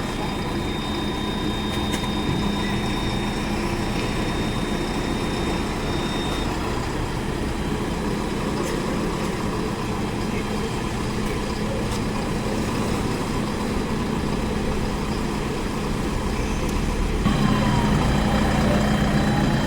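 JCB 3DX Super backhoe loader's diesel engine running steadily, getting somewhat louder near the end.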